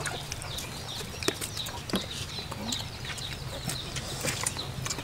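Chickens clucking and cheeping in the background, with scattered sharp clicks and crackles as a knife cuts through crisp roast pig.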